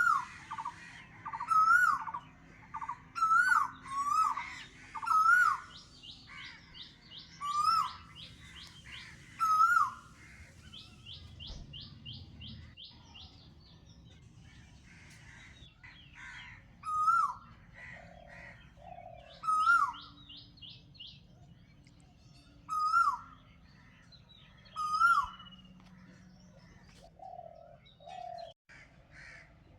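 Birdsong from more than one bird: a short call that rises and drops, repeated every second or two and sparser in the second half, over quick high chirping trills.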